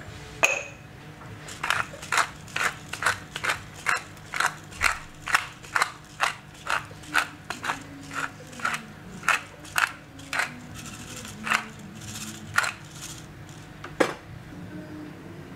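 Hand-turned pepper grinder grinding in short crunchy twists, about two a second for some ten seconds. A sharp click comes near the start and another near the end.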